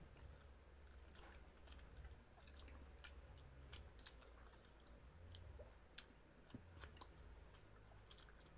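Faint chewing and mouth sounds of people eating, with soft scattered clicks over a low room hum.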